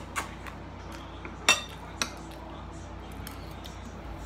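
Metal forks clinking against ceramic dinner plates while eating: a few sharp clinks, the loudest about a second and a half in.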